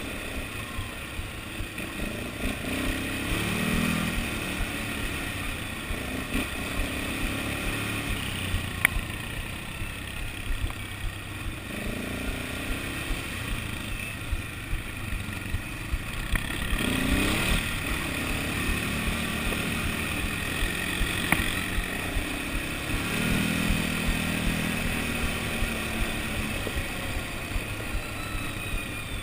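Quad bike (ATV) engine running as it is ridden along a rough dirt track, the revs rising and easing off several times. Short knocks and rattles come through now and then.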